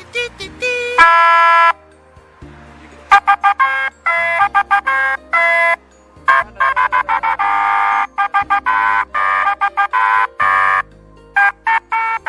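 An electronic tune of short, rapid beeping notes over a bass line, played through a car-mounted novelty PA speaker, stopping briefly twice before starting up again.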